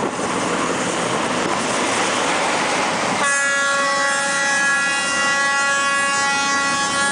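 Diesel locomotive's air horn sounding one long, steady blast starting about three seconds in, over the rushing running noise of the train.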